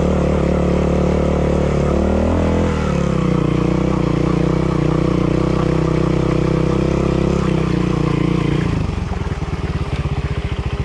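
Montesa trials motorcycle engine running steadily under throttle. The revs rise briefly two to three seconds in, then hold steady, and about nine seconds in they drop to a slow, low putt.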